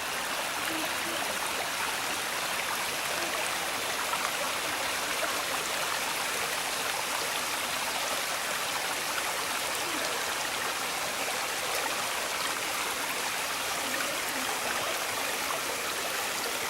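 Small waterfall on Honey Creek and its stream: a steady, even rush of flowing water that does not let up.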